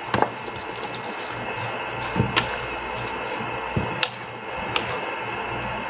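Wooden spatula knocking against a pan as shredded cabbage is dropped in and stirred into simmering broth: a handful of short sharp knocks over a steady hiss.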